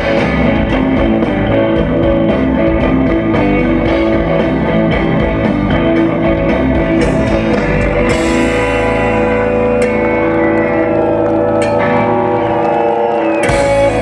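Rock band playing live, with electric guitars and drum kit, in the instrumental close of a song; about halfway through it settles into a long held final chord, punctuated by several cymbal crashes.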